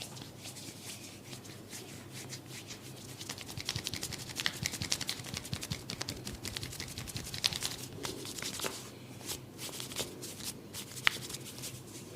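Hands working on skin and hair during a head massage: a rapid run of short rubbing and patting strokes, busiest a few seconds in, with a few sharper clicks later on.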